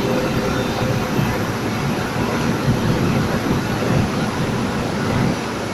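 Bus driving along a road, heard from inside: a steady rumble of engine and tyre noise.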